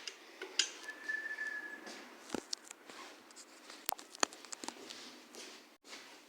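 Front door whistling from a gale-force wind: one thin, steady whistle about a second in, lasting about a second. Scattered clicks and rattles sound over a faint rush of wind.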